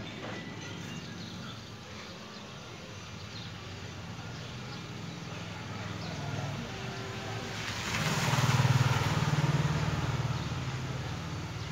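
Motor vehicle engine running with a low steady hum, swelling to its loudest as it passes about eight seconds in, then fading.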